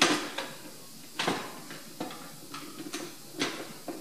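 Bar clamp being fitted and tightened on an MDF speaker cabinet: a handful of sharp clacks and clicks at uneven intervals, the loudest right at the start.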